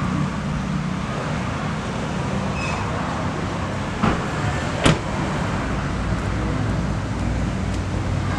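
Car engine idling steadily. A car door latch clicks twice about four and five seconds in as the door is unlatched and opened.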